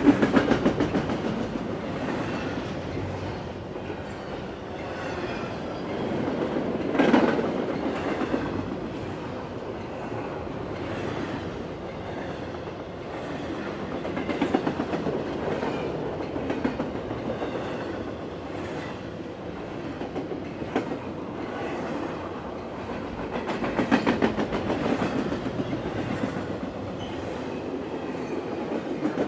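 A long train of rail cars passing fast, the wheels clacking rapidly over the rail joints in a continuous clatter that swells and eases several times.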